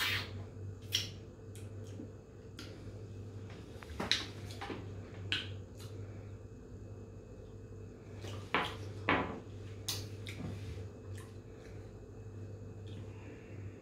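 Scattered small knocks and clicks of a wooden spoon being set down on a wooden table and a glass sauce bottle being picked up and handled, over a steady low hum.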